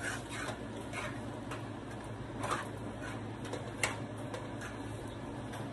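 A spoon stirring rice and salt cod in a metal pot, ticking and knocking lightly against the pot at irregular intervals, over a low steady hum.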